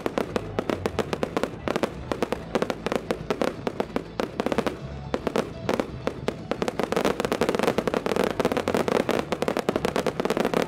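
Professional fireworks display: a dense, rapid string of bangs and crackles from aerial shell bursts and ground fountains, many reports a second, thinning briefly about halfway through.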